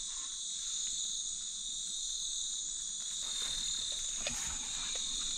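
Night insect chorus: a steady, high-pitched, unbroken trilling, with a few faint clicks in the second half.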